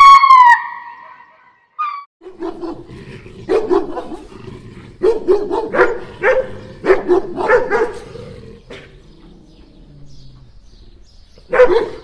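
Opens with a loud, high call falling in pitch that stops after half a second. From about two seconds in, a dog barks in runs of short, quick barks, with a pause of a few seconds before the last barks near the end.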